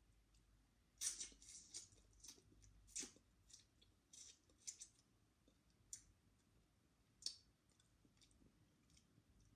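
Eating by hand, close up: quiet, sharp, wet clicks and smacks of the mouth and fingers on the food. They come in an irregular cluster from about a second in until about seven seconds.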